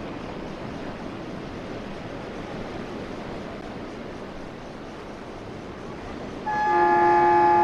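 Steady wash of sea surf and wind, then, about six and a half seconds in, a train horn sounds loudly: several steady tones at once.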